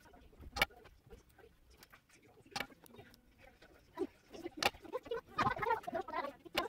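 Three sharp knocks about two seconds apart, the last as a hot glue gun is grabbed off a glass tabletop. A short wavering vocal sound comes in near the end.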